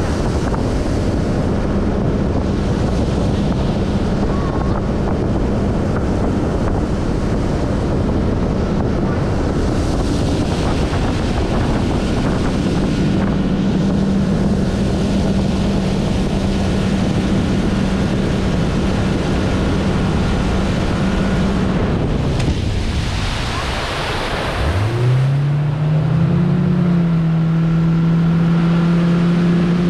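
Speedboat outboard motor running at speed with a steady drone, under heavy wind buffeting on the microphone and the rush of water off the hull. Near the end the engine note drops, then climbs quickly back up and settles.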